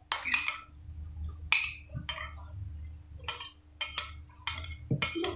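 Metal spoon clinking against a ceramic soup bowl while eating, about eight sharp clinks spread irregularly over a few seconds.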